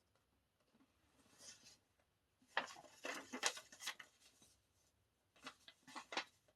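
Paper and card inserts of a K-pop album being handled: short bursts of rustling and sliding, in three clusters with quiet gaps between.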